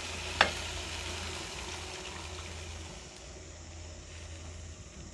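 Water poured from a jug into a wok of frying chicken, potatoes and spice paste. The pour is a steady rush, with one sharp click about half a second in, and it thins out after about three seconds.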